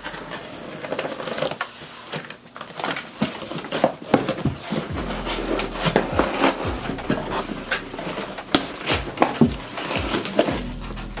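Bubble wrap and plastic packaging rustling and crinkling as they are handled, a steady run of irregular crackles and sharper snaps.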